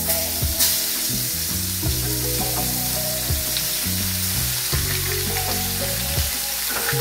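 Seasoned steaks laid into hot oil in an electric skillet, frying with a steady sizzle that swells about half a second in as the meat hits the oil.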